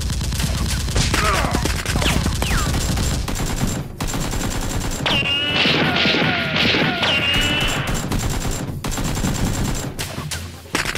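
Sustained rapid gunfire, shots coming in quick, dense bursts with barely a break, and a few brief falling whistles in the middle.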